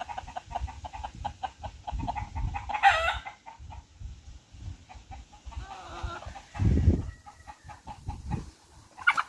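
A flock of chickens clucking and peeping steadily, with a louder call about three seconds in. Low rumbling comes twice.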